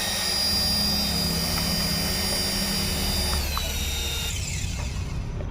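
Small electric motor and rotors of a toy remote-control helicopter running with a steady high whine, then winding down in two steps from about three and a half seconds in.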